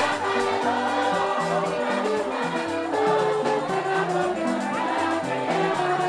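A choir singing with musical accompaniment: held notes moving in steps over a steady beat.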